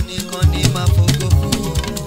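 Instrumental African gospel praise band music with no singing: a bouncing bass line under drums and other instruments keeping a steady beat.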